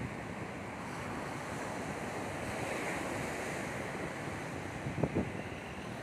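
Sea surf breaking and washing up a sandy beach in a steady rushing hiss, with wind on the microphone. Two short low thumps come near the end.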